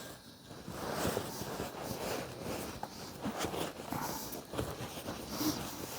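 Leather sofa seat upholstery being handled and pushed into place by hand: irregular rustling and scuffing of leather and padding, with a few light knocks.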